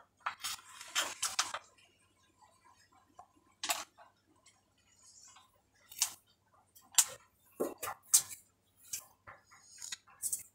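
Thin plastic drinking-water cups being handled and squeezed: a dense rustling crackle in the first second and a half, then sharp plastic clicks and crackles about once a second.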